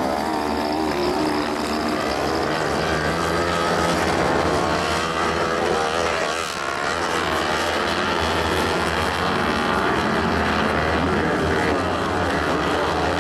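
Several kart cross buggies' motorcycle engines revving together, their overlapping pitches rising and falling as the drivers accelerate and lift off around the track.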